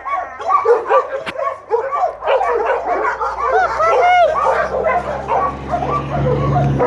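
Many shelter dogs barking and yipping at once, their calls overlapping without pause. A low steady hum grows louder near the end.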